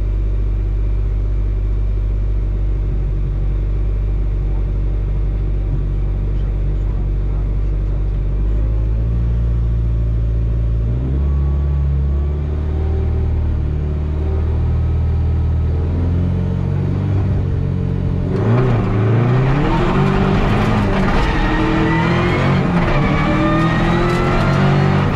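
Peugeot 207 R3 rally car engine heard from inside the cockpit: a steady note while the car waits at the stage start, with the revs stepping up about ten seconds in. At about eighteen seconds it launches and accelerates hard, the pitch rising again and again through several upshifts.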